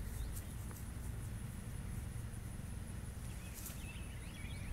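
Outdoor ambience: a steady low rumble, a faint steady high insect drone, and a few short bird chirps near the end.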